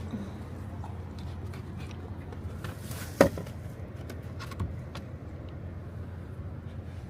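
Steady low rumble of city street traffic, with one sharp knock about three seconds in and a few faint clicks.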